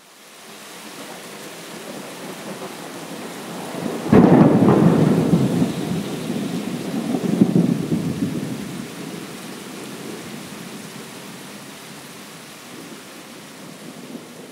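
Thunderstorm: steady rain hiss with a sudden thunderclap about four seconds in. The thunder rolls on, swells again a few seconds later and slowly dies away.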